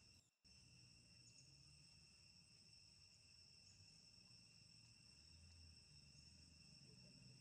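Faint, steady chorus of insects with a continuous high ringing tone, cutting out briefly just after the start.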